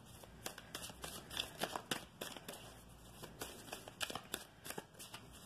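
A tarot deck being shuffled by hand: soft, irregular card flicks and slides.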